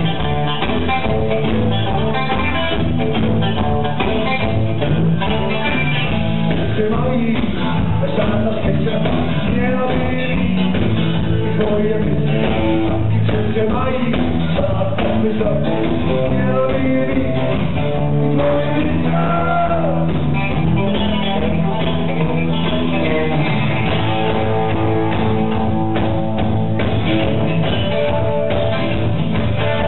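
Live rock band playing loudly through a PA: electric guitars and a drum kit, recorded from among the audience.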